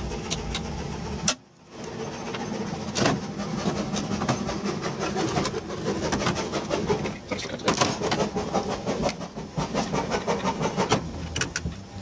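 Clicks, knocks and clatter of metal parts being handled while a vacuum-tube military frequency meter's steel chassis is taken apart. Under them runs the steady noise of woodworking machinery.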